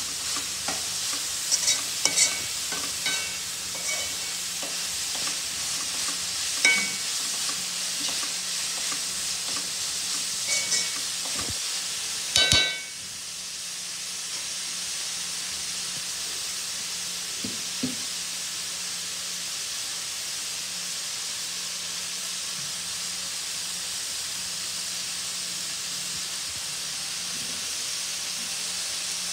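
Chopped dill and onion sizzling steadily as they fry in oil in a metal kadai. A spatula clinks and scrapes against the pan through the first dozen seconds, with a last loud clink about twelve seconds in; after that only the sizzling goes on.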